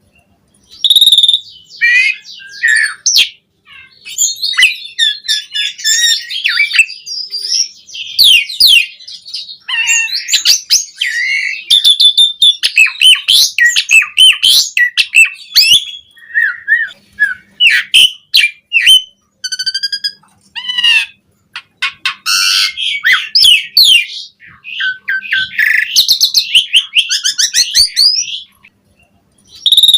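Javan pied starling (jalak suren) singing a long, varied song of whistles, rapid chattering and harsher notes, with short pauses about three seconds in and near the end.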